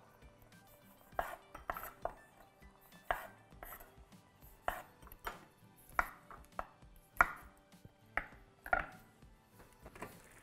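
Chef's knife cutting cherry tomatoes on a wooden cutting board: an irregular series of sharp knocks of the blade on the board, about one or two a second.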